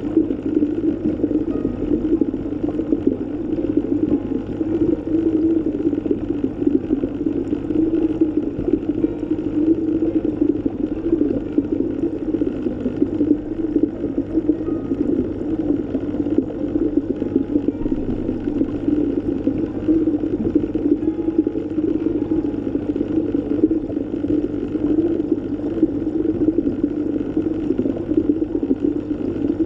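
Steady low underwater ambience: an even, dull rushing sound with no beat or melody, unchanging throughout.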